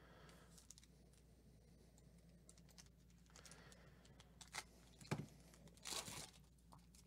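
Foil baseball-card pack wrapper being handled and torn open: faint crinkling, then a few sharp rips from about two thirds of the way in.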